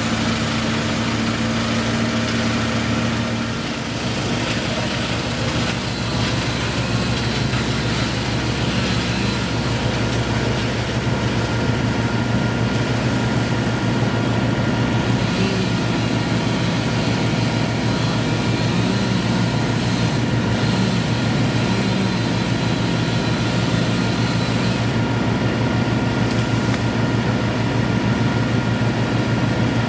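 Heavy engine running steadily; about three and a half seconds in its note changes to a deeper, steady throb.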